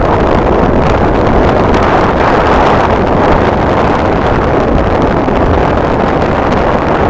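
Strong wind buffeting the microphone, a loud, steady rushing noise.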